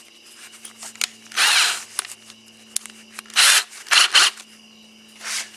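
Drill chuck being worked to change bits: four short noisy bursts with scattered clicks in between, over a faint steady hum.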